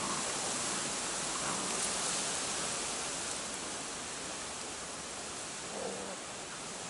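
Steady rushing hiss of strong storm wind blowing through trees and bushes.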